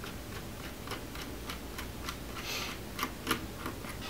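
Small irregular clicks and taps of a Phillips screwdriver working a laptop hinge screw out of its plastic case, with a short scraping rustle about two and a half seconds in and two sharper taps soon after.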